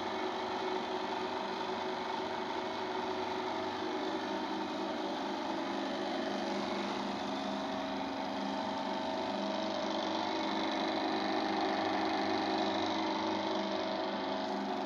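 Thread-tapping drill press running steadily, an even machine hum with several constant tones.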